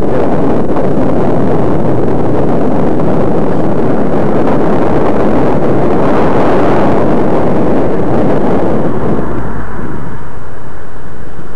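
Loud, steady wind rush on the microphone of a glasses-mounted camera on a moving bicycle, mixed with road traffic. The rush eases about nine seconds in as the bike slows behind cars queued at a light.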